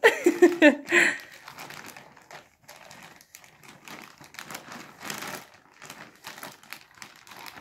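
Grey plastic mailer bag crinkling and rustling in irregular bursts as a small child's hands pull and try to tear it open. A brief voice is heard in about the first second.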